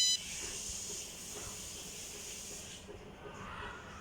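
Faint steady hiss of background noise between beeps of a maker board's buzzer. The end of one electronic beep is heard at the very start, and the hiss fades about three seconds in.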